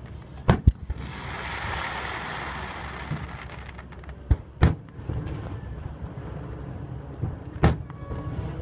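Aerial firework shells bursting with sharp booms: two close together about half a second in, two more about four and a half seconds in, and one near the end.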